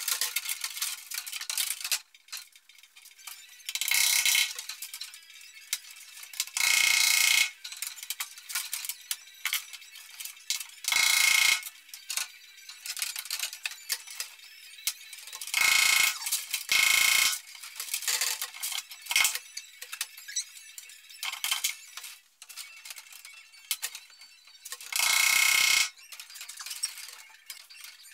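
Plastic PEX tubing being pulled and handled around a water manifold: irregular bursts of scraping and rubbing, each about half a second to a second long, with small clicks and taps in between.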